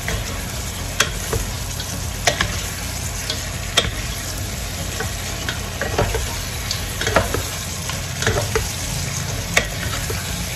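Pork and garlic sizzling in a pan as they are stirred, with a cooking utensil knocking and scraping against the pan now and then.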